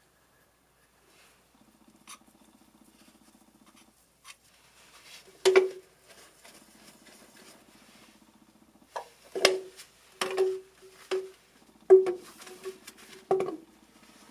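Hollow plastic knocks and clatter of PVC drain pipe and fittings being handled and fitted together: about half a dozen sharp knocks, most in the second half, over a faint low buzz that comes and goes.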